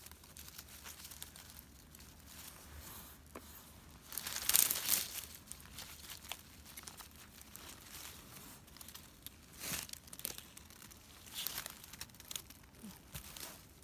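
Forest-floor litter of leaves, pine needles and twigs rustling and crackling under a gloved hand picking mushrooms, in several short bursts, the loudest about four seconds in.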